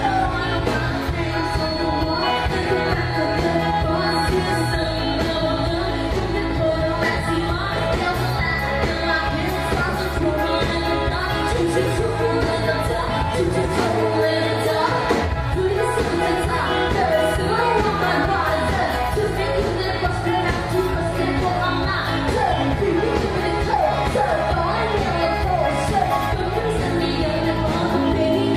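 Live pop-rock band playing, with a female lead singer singing over drums, bass, guitars and keyboard. The bass and kick drop out for a moment a little before halfway, then the full band comes back in.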